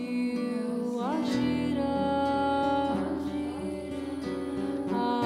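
Live band music: a song with guitar and held, gliding sung notes. A low bass part comes in about a second and a half in.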